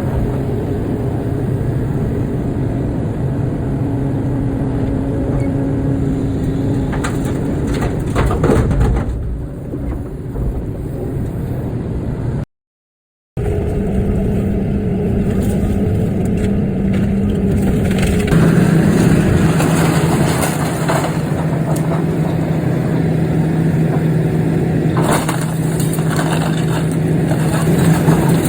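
Excavator diesel engine and hydraulics running while digging, with scattered knocks. The sound cuts out for about a second around the middle; after that the engine holds a steadier, even pitch.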